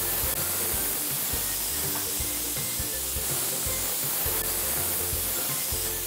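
Stovetop pressure cooker hissing steadily as steam escapes around its weighted whistle valve, with background music under it.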